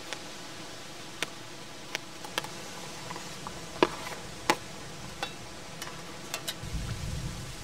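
Scattered sharp clicks and knocks of a knife, a plastic cutting board and a stainless steel bowl as chopped vegetables are cut and tipped into the bowl, the two loudest knocks close together midway, over a steady faint hiss. A low rumble comes in near the end.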